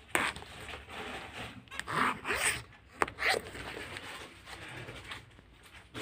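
Handling noise: short rasping scrapes and rustles in three bursts, with two sharp clicks about three seconds apart.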